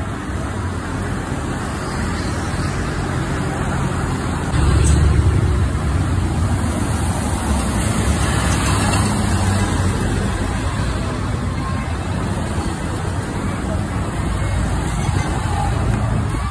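Coach buses and other traffic driving past close by, their diesel engines giving a steady low rumble that gets louder about four and a half seconds in as a bus passes.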